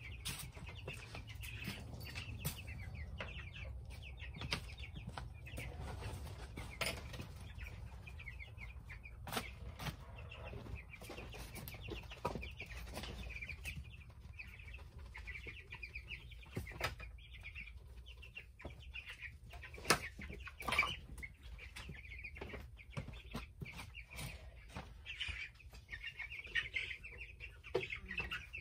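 Baby chicks peeping continuously in a brooder, with scattered knocks and scrapes of hands working inside the wooden brooder box, two of them louder about two-thirds of the way through.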